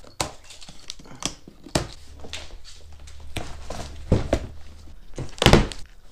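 Cardboard shipping box being torn open by hand: a string of irregular crackling, tearing and scraping sounds as the flaps are pulled apart and folded back, the loudest a little after five seconds in.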